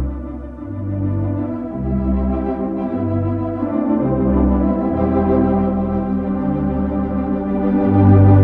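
Organ music: sustained chords over a bass line of low notes that change about every half second to a second.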